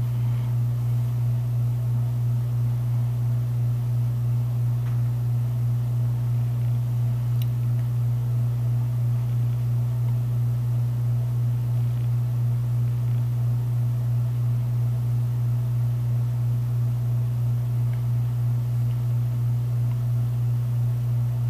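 A steady low mechanical hum with a slight regular pulse, and a few faint ticks.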